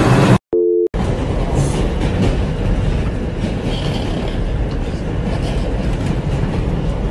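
New York City subway train running, heard from inside the car: a steady rumble and rattle of the wheels on the track with faint clicks. The sound drops out briefly about half a second in, with a short beep.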